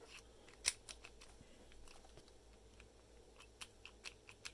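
Small metallic clicks and ticks from a hand-cut brass key being wiggled and pushed in a rotary registered mail padlock, with one sharper click about 0.7 s in and a run of light ticks near the end. The key is cut close but does not turn the lock.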